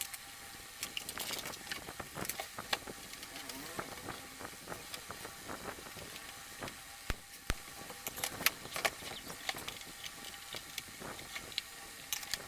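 Irregular small clicks, taps and light metallic rattles of screws, tools and the metal case being handled as the Sansui B-1000 power amplifier is opened up.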